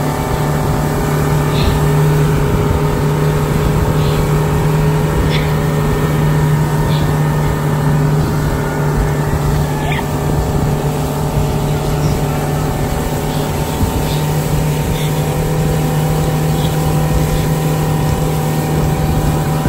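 75 hp Honda four-stroke outboard motor running steadily at speed while towing a tube, its pitch holding even, over the rush of water in the wake.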